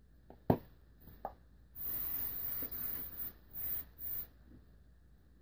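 Hairspray sprayed onto the hair: one hiss of about a second and a half, then two short bursts. Two clicks come before it, the first sharp.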